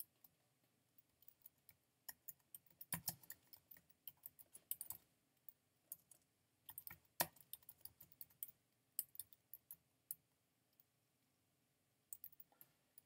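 Faint typing on a computer keyboard: quick, irregular key clicks in short runs with pauses between them.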